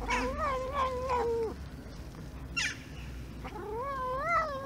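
Domestic cat making long, wavering meow-like calls while eating: two drawn-out calls with a short sharp one between them. It is the food-guarding chatter that the speaker reads as the cat warning everyone to keep away.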